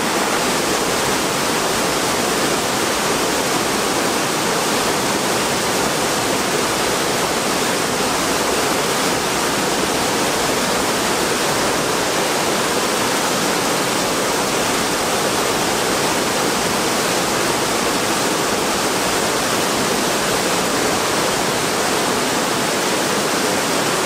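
Shallow mountain river rushing over boulders and small cascades: a steady, even roar of water.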